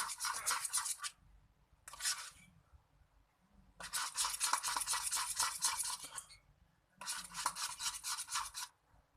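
A stirrer scraping quickly round a bowl while mixing a glue-based slime mixture, in four spells of rapid scratchy strokes with short pauses between.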